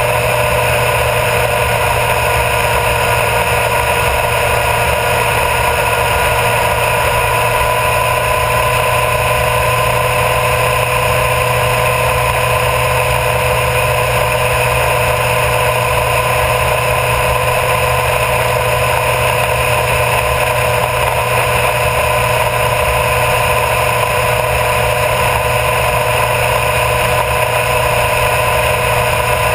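Honda CBR1000RR Fireblade's inline-four engine running at a steady cruise with wind and tyre noise on a low front-wheel mount. The pitch and level hold even, with no revving or gear changes.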